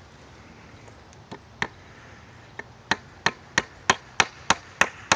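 A hammer driving a nail into wood: a few scattered taps, then steady blows about three a second from about three seconds in, getting louder.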